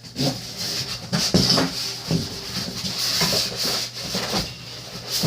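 Styrofoam packing being rubbed and pulled around inside a cardboard shipping box: irregular scraping and rubbing with handling knocks, and a louder thump right at the end.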